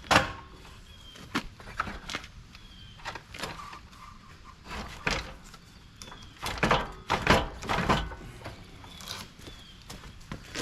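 Irregular knocks and clunks of loosened front-end parts and radiator being handled and worked free on a car under repair, with a denser run of clunks about two-thirds of the way through.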